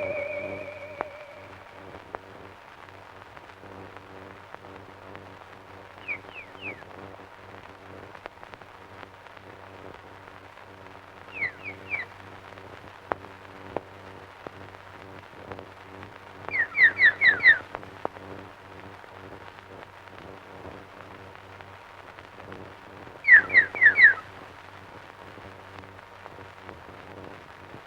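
Bird chirps in short bursts of two to five quick falling notes, a few seconds apart, over a steady low hum and hiss. Theremin music fades out at the start.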